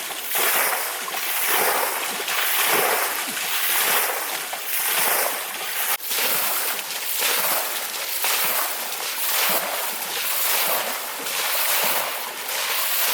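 Hands slapping and splashing shallow river water in a steady rhythm, about one splash a second, to drive trapped fish.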